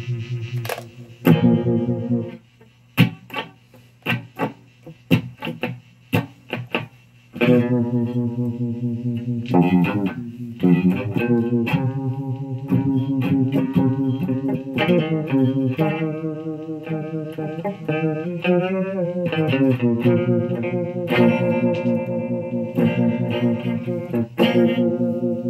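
Electric guitar played through a Fuzz Face fuzz pedal on a run-down battery, the starved fuzz giving horrible sounds. After an opening held note come a few seconds of short choppy stabs, then sustained notes, with a wavering bend in pitch past the middle.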